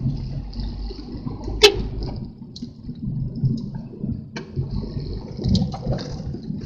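Strong gusty wind rumbling and rushing on the microphone, with a sharp click about a second and a half in.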